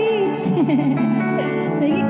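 A woman singing into a handheld microphone over an instrumental backing track with guitar.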